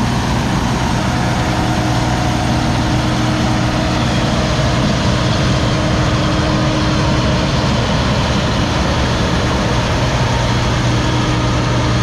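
Case IH combine harvesting standing corn, its engine and threshing machinery running at a steady, even drone.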